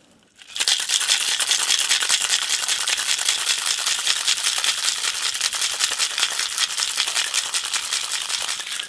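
Ice rattling hard inside a Boston shaker, a steel tin fitted over a mixing glass, as a cocktail is shaken with ice. It is a fast, continuous rattle that starts about half a second in and stops just before the end.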